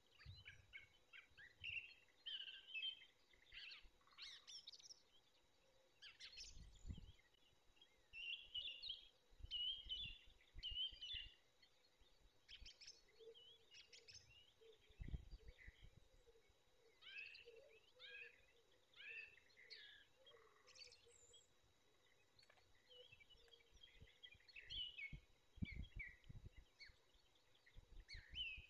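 Small songbirds chirping and singing faintly in a pine forest, in short calls and trills that come and go, with a few low thumps.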